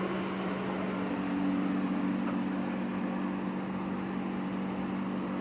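Steady mechanical hum with a constant low tone, joined by a second, slightly higher tone about a second in.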